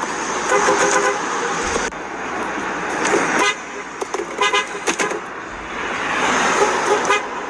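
Car horns honking several times over a loud, noisy background: a held blast about half a second in, then a quick run of short toots around the middle and more horn tones near the end.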